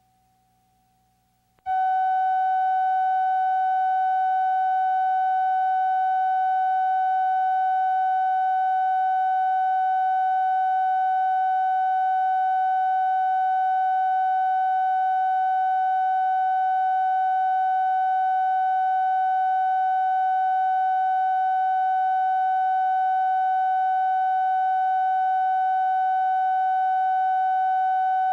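Steady line-up test tone recorded with colour bars at the head of a broadcast videotape spot: one loud, unchanging pitch. It starts abruptly about two seconds in, after near silence with a faint hum.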